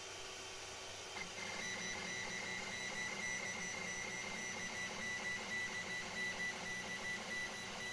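JG Aurora 3D printer's stepper motors running with a steady high whine and a low hum, starting about a second in: the bed's Z motors driving it level during hardware auto-leveling.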